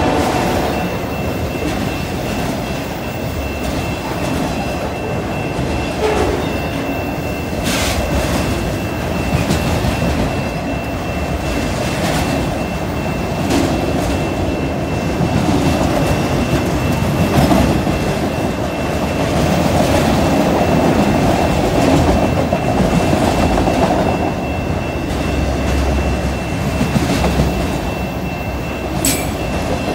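Freight train of autorack cars rolling past, a steady rumble of steel wheels on rail with clickety-clack over the rail joints and a couple of sharper clanks.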